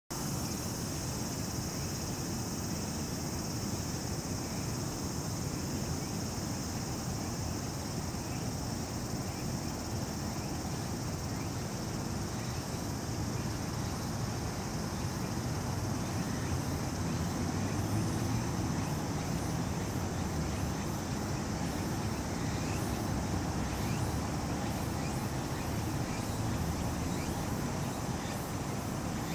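Steady outdoor background: a low rumble under a constant high-pitched insect chorus.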